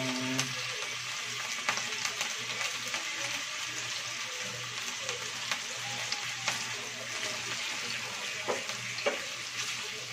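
Chicken pieces sizzling in hot oil in a nonstick frying pan, a steady hiss with occasional clicks and scrapes of a slotted spatula as the pieces are turned.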